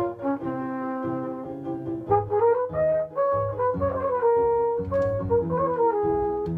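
Flugelhorn playing a melody in long held notes, with piano accompaniment beneath.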